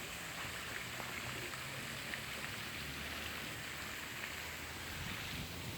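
Steady water noise, an even hiss without distinct events.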